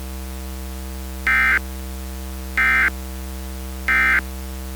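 Emergency Alert System end-of-message data bursts: three short, harsh digital warbles about a second apart, marking the end of the alert. They sound over a steady low electronic drone.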